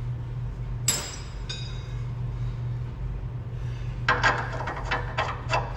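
A single metallic clink about a second in, then from about four seconds a fast, even run of clicks, roughly six a second: a ratchet wrench tightening a suspension bolt. A steady low hum runs underneath.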